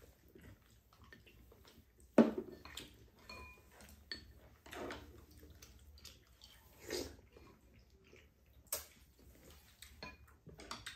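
Spoons and chopsticks knocking and scraping against bowls and the pot during a meal, with soft sipping of stew broth from a spoon. A sharp knock about two seconds in is the loudest sound.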